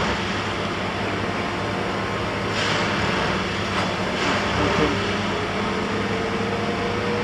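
Diesel engines of track-maintenance machines, a tamper and a road-rail excavator, running steadily. A few brief hisses come a little before halfway, and a faint whine rises slowly in pitch through the second half.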